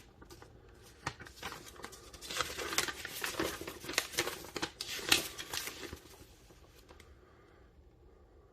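Handling noise: a run of light clicks, scrapes and rustling as something is moved about by hand, busiest in the middle and dying away about seven seconds in.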